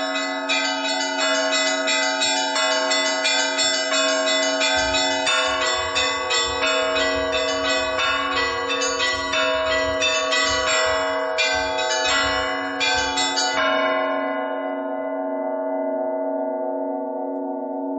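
Orthodox church bells rung in a full peal (trezvon): many bells struck in quick succession over steadily ringing lower bells. About thirteen or fourteen seconds in the striking stops and the bells hum on, slowly fading.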